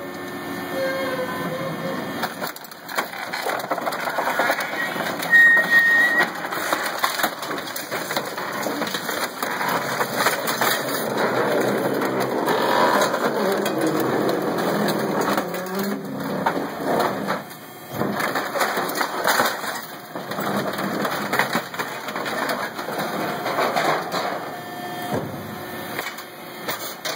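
Compacted block of mixed waste (paper, foil, plastic) crackling, crunching and scraping as a compactor's ram pushes it out of the chamber, with a brief high squeal about five seconds in.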